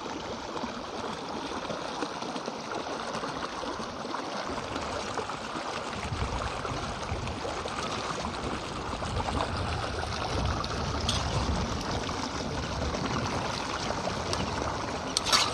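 Water rushing and gurgling over rocks in a shallow stream, then battered cauliflower sizzling as it deep-fries in oil in an iron kadai. A low rumble joins about six seconds in, and a few sharp clicks come near the end.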